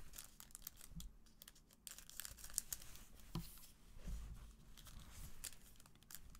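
Foil trading-card packs crinkling and crackling as gloved hands pick them up and square the stack, with a few soft thumps against the table.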